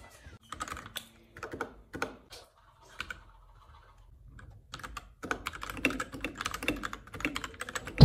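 Typing on a white 60% Deltaco mechanical keyboard with red switches. The keystrokes are scattered at first, then turn into a quick, steady run of clacks over the last three seconds.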